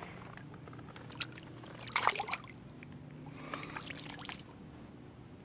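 Water splashing and dripping at the edge of a pond as a bass is held in the water by hand for release, with a louder splash about two seconds in and smaller splashes near the end.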